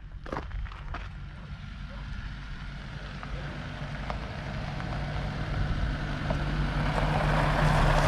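A motor vehicle approaching, its engine hum growing steadily louder over several seconds.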